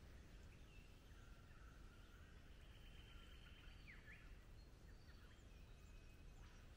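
Near silence: faint outdoor ambience with soft bird calls, short whistled notes and a few quick pitch glides.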